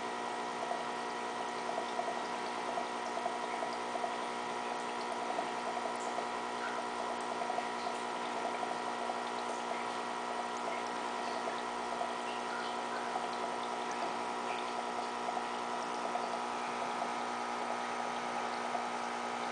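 Aquarium pump running with a steady hum, with water bubbling and faint scattered ticks.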